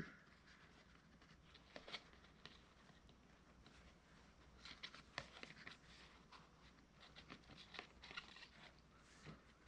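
Faint scattered clicks and light rustling from things being handled by hand, in a quiet room.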